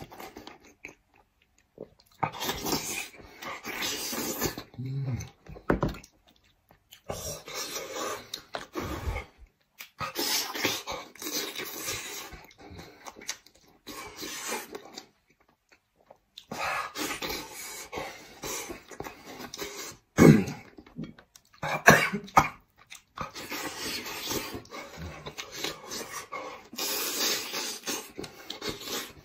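Close-miked eating sounds: wet chewing, sucking and slurping of saucy braised head meat pulled off the bone, in irregular bursts with short pauses between, and two louder slurps about twenty and twenty-two seconds in.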